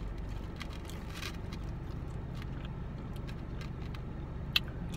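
Steady low hum of a car's engine inside the cabin, with small clicks and rustles of fingers picking at fried food in a foam takeout container, and one sharp click near the end.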